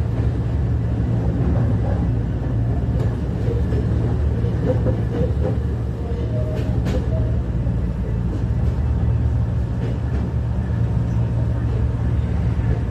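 Kobe Electric Railway 5000 series electric train running at speed, heard from inside the passenger car: a steady rumble and hum of wheels and traction motors. There are a few sharp clicks, and some faint short whining tones about five seconds in.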